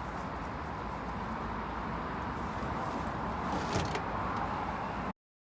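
Steady vehicle-like running noise with a few light clicks near the end, cut off suddenly.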